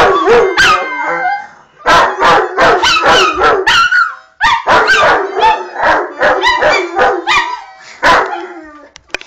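A Rottweiler and a fox terrier howling together with short, sharp yips mixed in, a wavering, rising-and-falling chorus in loud bouts with brief breaks about one and a half and four seconds in; the dogs are howling along to a child playing a harmonica.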